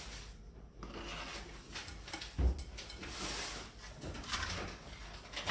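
Kitchen handling sounds: a spatula working cream cheese in a ceramic bowl, a dull knock about two and a half seconds in, then light clicks and rustling as utensils are picked up from the counter.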